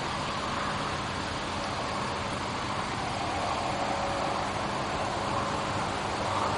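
A steady rushing drone whose middle band slowly wavers and swells near the end, with a faint low hum under it.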